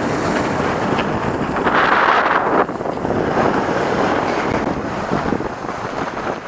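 Wind buffeting the microphone of a rider going down a ski slope on skiboards, a steady rushing noise. About two seconds in, a louder hiss lasts just under a second.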